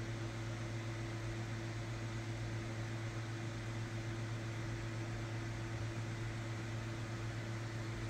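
Steady low hum with an even hiss: the background noise of a small room with a fan or appliance running.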